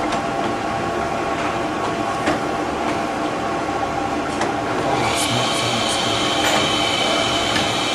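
Manual engine lathe running during a thread-cutting pass: a steady whir of motor and gears, with a higher whine of several steady tones joining about five seconds in.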